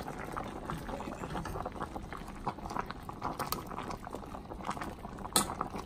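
Cabbage boiling in a stainless steel pot on a gas stove: steady bubbling with many small pops, and a sharp click near the end.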